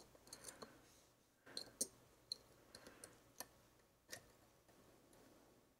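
Faint, irregular clicks of a lock pick and tension wrench working the pin tumblers inside an American Lock 1100 padlock, about a dozen small ticks spread unevenly.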